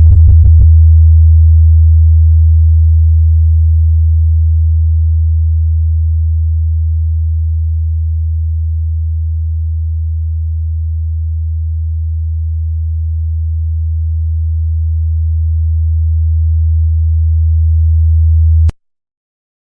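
Low-frequency sine test tone for a speaker bass check: one deep, steady bass tone. It dips slightly in loudness midway, then swells back and cuts off suddenly near the end.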